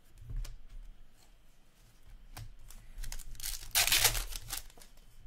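Hockey trading cards flipped and slid through the hands: a few soft clicks and rustles, then a loud papery rustle about a second long, starting some three and a half seconds in.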